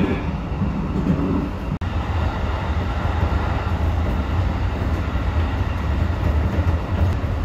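Steady running rumble of a train heard from inside the carriage as it travels along the line, with a brief cut-out about two seconds in.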